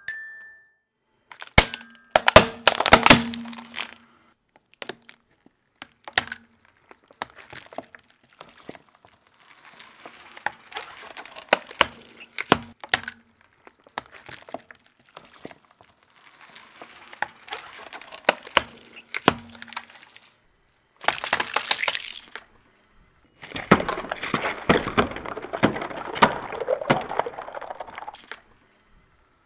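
A car tyre crushing objects one after another on concrete. The loudest sounds are sharp plastic cracks about two to three seconds in as a toy xylophone breaks. After that come scattered cracks and longer stretches of crackling, crunching and squishing as plastic bottles of liquid are flattened, the densest near the end.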